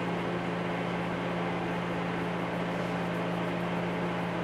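Steady machine hum with a constant airy whir, as from a running fan.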